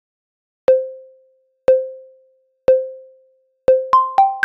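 Electronic chime sting: four short blips at the same pitch, a second apart, then a quick run of three higher chime notes near the end, the last ringing on.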